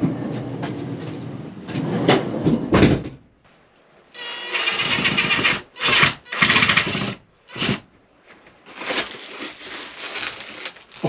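A handheld drill boring into a plywood wall panel in several bursts: a longer run with a steady whine, then short stop-start trigger pulses. The bit is countersinking the panel's screw holes.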